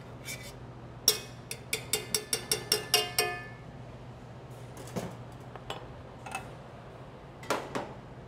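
Metal spoon scraping and clinking inside a stainless steel container: a quick run of about ten ringing clinks between one and three seconds in, then a few scattered clanks of metal kitchenware.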